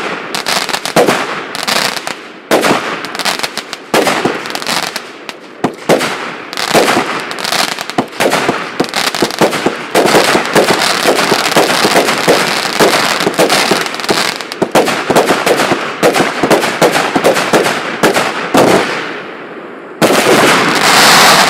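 A 148-shot, 0.8-inch firework cake battery firing: a rapid string of sharp launch and burst reports that grows denser about halfway through. Near the end comes a short lull, then a dense, loud final volley.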